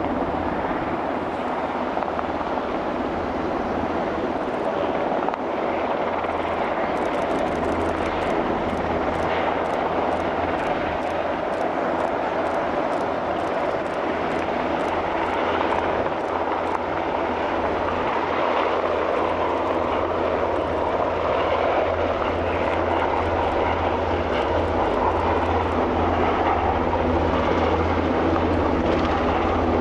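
Sikorsky S-92 helicopter flying low: steady rotor and turbine engine noise with a deep hum underneath, growing slightly louder toward the end.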